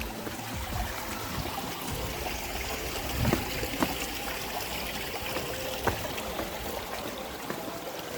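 Water flowing and trickling steadily in a stream, with a few short knocks a few seconds in.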